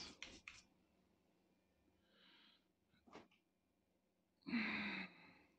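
Mostly quiet, with a single small click about three seconds in and a short, sharp breath near the end.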